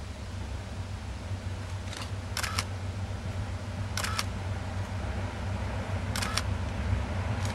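Diesel locomotive engine running with a steady low drone, growing slightly louder as the train approaches. Short sharp clicks come in small groups about every two seconds.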